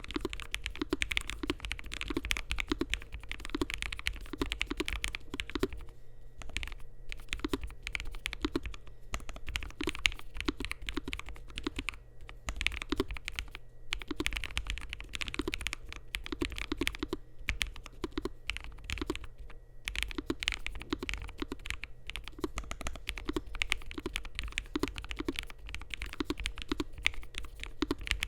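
Continuous typing on a Lofree Flow mechanical keyboard with Kailh Ghost linear switches, PBT keycaps and a gasket-mounted FR4 and polycarbonate plate: a fast stream of keystroke clacks with a few brief pauses.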